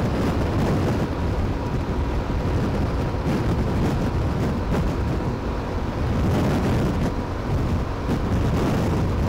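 Wind buffeting the microphone of a Yamaha Ténéré 700 motorcycle cruising at highway speed. The bike's parallel-twin engine and tyre noise run steadily beneath the wind.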